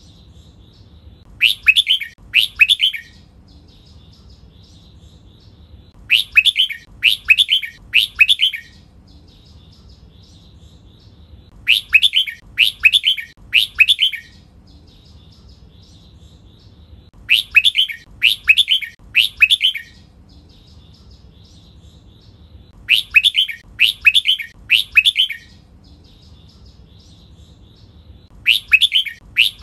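Red-whiskered bulbul singing: loud phrases of about three short, clear whistled notes come about every five and a half seconds, with soft twittering in between.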